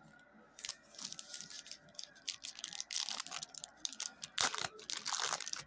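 A 1990 Fleer football card pack's wax-paper wrapper being torn open and crinkled, a run of crackles that is loudest about four and a half seconds in.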